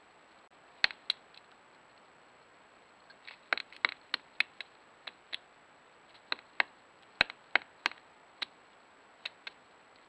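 Pileated woodpecker's bill striking and prying at a dead ash trunk while foraging for beetle grubs: about twenty sharp wooden taps, irregularly spaced, some in quick clusters of two or three.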